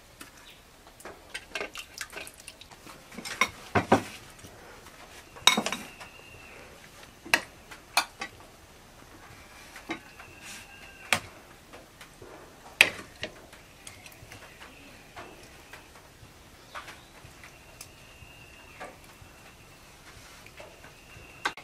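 Kitchen utensils knocking and clinking against pots and dishes in a string of separate sharp strikes, as food is handled.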